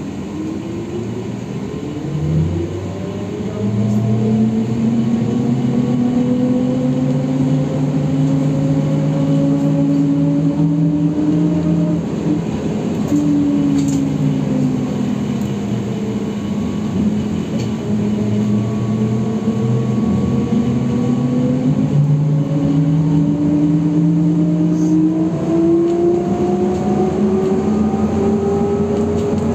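Inside a ZiU-682B trolleybus under way, with the whine of its electric drive over road noise. The whine rises in pitch as the trolleybus picks up speed, drops between about twelve and sixteen seconds in as it eases off, then climbs again toward the end.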